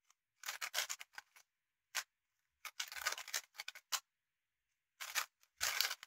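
Dayan TengYun v2 magnetic 3x3 speedcube being turned quickly by hand: bursts of rapid plastic clicking as the layers snap round, with short pauses between the bursts.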